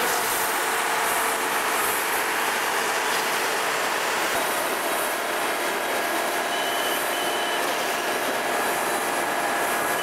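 Steady din of heavy construction vehicles running. Two short high beeps from a vehicle's reversing alarm sound about two-thirds of the way in.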